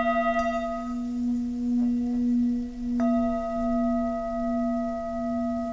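Tibetan singing bowl ringing after a mallet strike, one low hum with fainter higher overtones that pulses slowly as it fades. About three seconds in the bowl is struck again and rings on.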